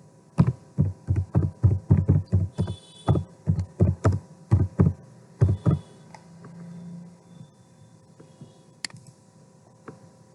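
Computer keyboard being typed on, heard as dull low thumps at an uneven pace of about three a second, stopping about six seconds in. A faint steady hum and a couple of soft clicks follow.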